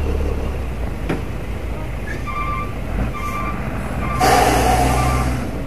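Heavy diesel truck engine running low and steady, with two short beeps a little before midway, then a loud hiss of compressed air from the truck's air brakes about four seconds in, lasting about a second.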